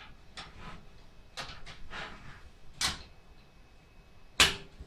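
Plastic panel of a Bitfenix Neos PC case being handled and pushed onto its clips: scattered light clicks and knocks, a sharp snap a little before three seconds in and a louder one near the end.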